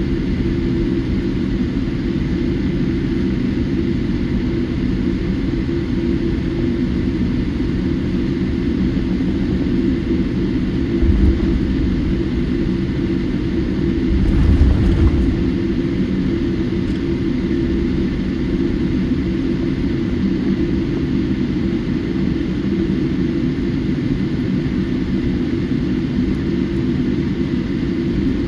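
Steady cabin noise inside a Boeing 787-8 airliner: the engines and airflow make a constant low rumble with a steady hum. Two brief low bumps come a little before halfway through, the second one louder.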